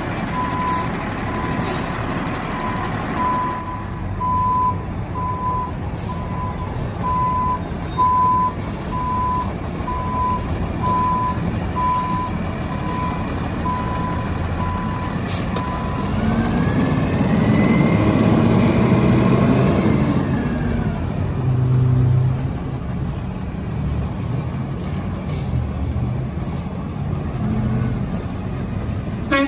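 Front-load garbage truck's backup alarm beeping steadily about once a second over the diesel engine running. The beeping stops about halfway through, and the engine revs up and falls back as the truck pulls away, then keeps running.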